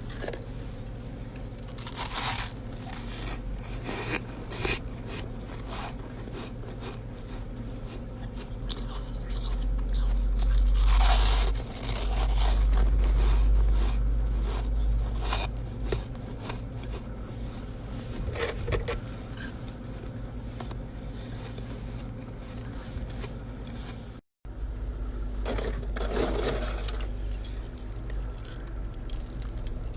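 Chest-freezer frost being scraped loose and bitten, with crisp crunches and scrapes at irregular intervals. A low rumble runs for a few seconds around the middle.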